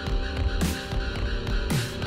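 Electronic music with a steady beat and a deep bass note that slides down in pitch about once a second, each slide led by a rising hiss.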